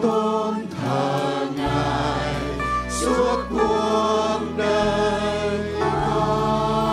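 Worship song played live: a mixed choir singing long held notes over band accompaniment with electric guitar.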